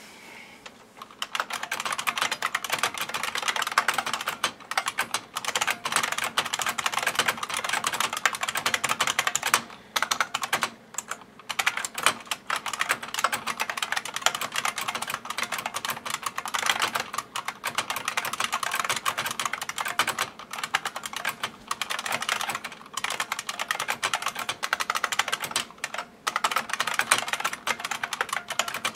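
IBM Model M buckling-spring keyboard being typed on quickly: a dense clatter of sharp key clicks that starts about a second in and runs on, broken by a few brief pauses.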